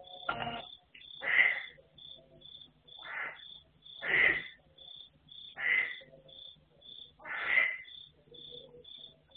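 A cricket chirping steadily, about two short high chirps a second, with louder rasping animal calls every second or two over it.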